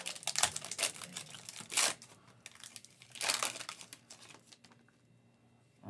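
Foil wrapper of a Panini Chronicles basketball card pack being torn open and crinkled by hand: dense crinkling for about two seconds with a louder rip near the two-second mark, then a second burst of crinkling about three seconds in as the cards are pulled out.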